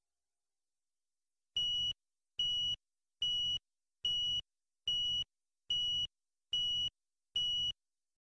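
Eight short, high-pitched electronic beeps at one steady pitch, evenly spaced a little under a second apart, starting about a second and a half in.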